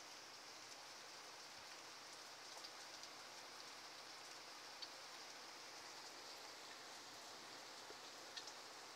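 Downpour of rain falling steadily, a faint even hiss with a few close drops ticking sharply now and then.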